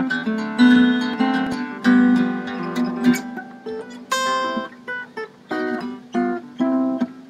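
Harp guitar played solo fingerstyle: plucked melody notes ringing over a steady bass line.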